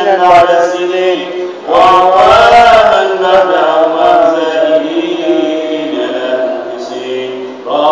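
Men's voices chanting an Arabic supplication (du'a) in long, drawn-out melodic phrases. A new, louder phrase comes in about two seconds in, and another begins near the end.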